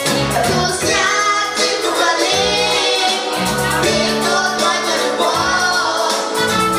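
A young boy singing a song into a microphone over backing music, amplified through the hall's sound system.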